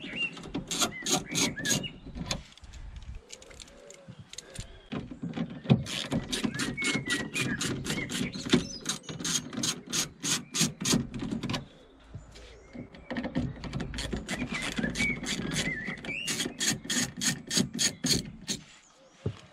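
Ratchet driver with a T25 Torx bit clicking in three quick runs, about four or five clicks a second, as the Torx bolts holding the window motor to the regulator are backed out.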